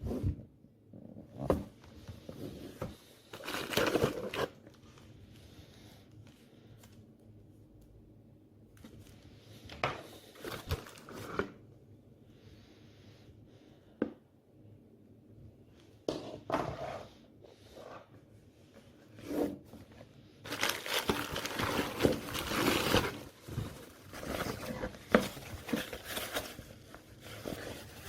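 Irregular handling noises: crinkling and rustling in bursts, with occasional sharp clicks, busiest about twenty seconds in.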